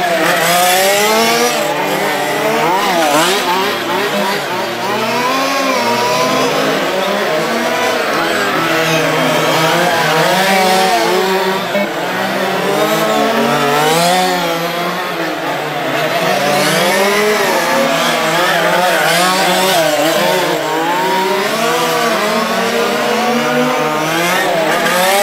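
Several 1:5-scale RC racing cars' small two-stroke petrol engines racing together, each revving up and down through the corners so their whining pitches rise, fall and overlap.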